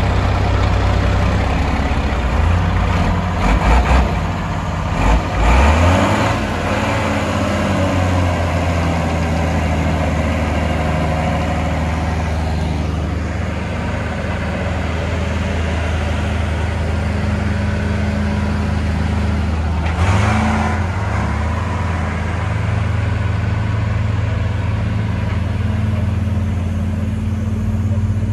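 Diesel engines of an MB Trac 1400 turbo tractor and a Mercedes-Benz Unimog running under heavy load, towing two loaded trailers over soft ground. The engines rev up a few seconds in and briefly again about twenty seconds in, and otherwise pull steadily.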